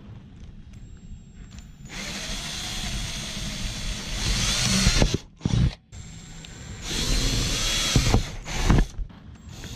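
Power drill pre-drilling screw holes in new shutters, running in two long spells of a few seconds each starting about two seconds in, with a short burst between them.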